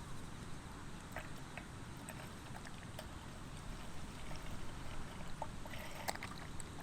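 Strong wind rumbling and buffeting against the microphone, with a few small clicks and taps from handled gear.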